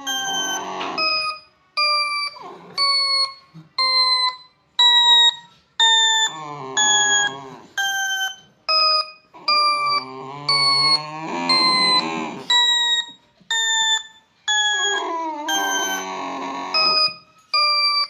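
A repeating ding tone, about one a second, each note sliding slightly down in pitch, with a pet joining in with long, wavering vocal calls in several stretches.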